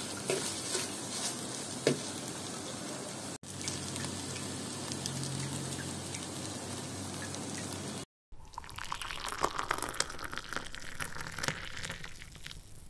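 Noodles frying in a metal pan, with a light sizzle and the occasional scrape and tap of a metal spatula as they are stirred. About eight seconds in the sound cuts to a busier run of quick clicks and scrapes.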